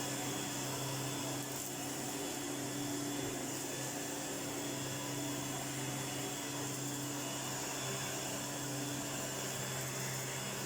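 1988 Electrolux 612 upright vacuum cleaner running steadily: an even motor hum under a broad rushing hiss, the sound of its freshly restored motor.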